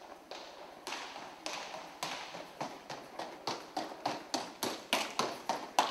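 Footsteps on a hard, polished hallway floor, getting louder and quicker, from under two steps a second to about three.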